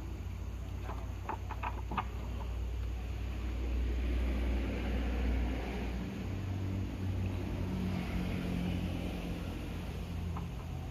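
Low, steady engine drone from an unseen motor, its pitch and tone changing about six seconds in, with a few light clicks about one to two seconds in.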